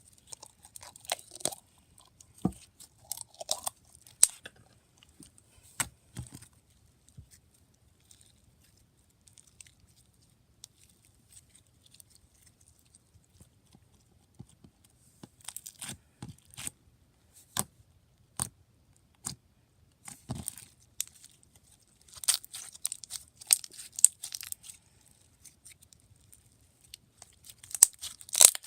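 Slime being stretched, poked and squished by hand, giving scattered sticky clicks and pops. The clicks bunch into denser crackling runs about two-thirds of the way through and again near the end.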